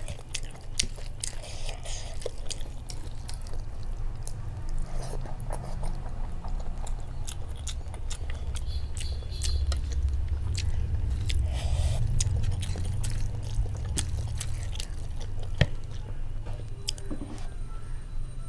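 Close-miked chewing and wet mouth clicks of a person eating rice mixed with prawn curry, with fingers squishing and mixing the rice on a paper plate. There are many small clicks throughout.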